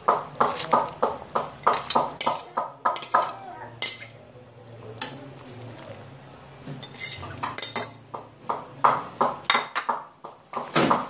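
Metal spoon clinking and scraping on a plate as cooked chicken pieces are tipped into a pot of porridge, over an even clopping beat of about three knocks a second that softens for a few seconds in the middle.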